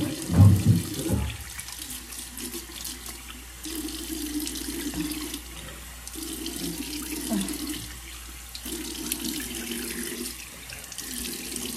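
Tap running into a bathroom sink while water is splashed on the face to rinse off a foaming face cleanser. There is a single low thump about half a second in.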